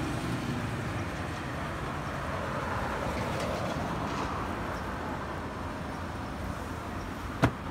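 Road traffic rumbling steadily, with one sharp knock near the end.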